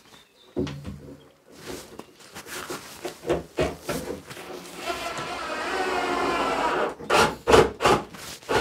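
A small power tool's motor runs for about two seconds, growing louder before it stops, amid scattered knocks of timber being handled; a quick run of sharp knocks follows near the end.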